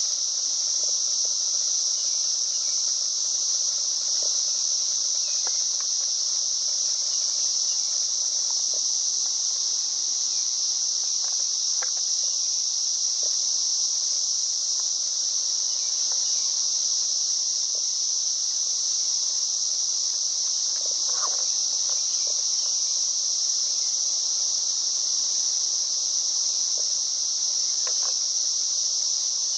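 A steady, unbroken, high-pitched drone of an insect chorus, such as crickets or katydids.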